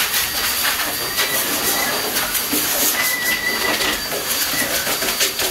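Dog grooming hose dryer blowing steadily: a loud, even hiss of rushing air.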